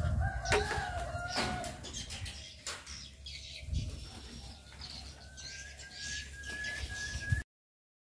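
Birds in an aviary: a drawn-out call with a slightly falling pitch in the first couple of seconds, scattered high chirps and wing flaps, then a long, slowly rising thin note that cuts off suddenly about seven seconds in.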